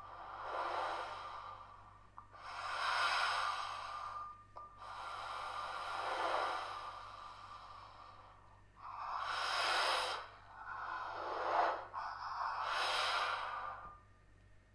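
Cello bowed for airy, hissing noise rather than a clear pitch: six breath-like swells of bow noise, each a second or two long, with short gaps between. A faint steady high tone sits underneath.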